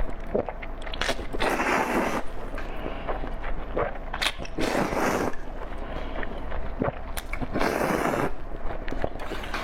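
Close-miked eating sounds: wet chewing clicks with three longer, noisy bursts about three seconds apart.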